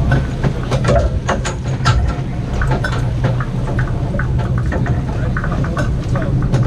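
Sportfishing boat's engine running with a steady low hum, under scattered clicks and knocks and the voices of people on deck.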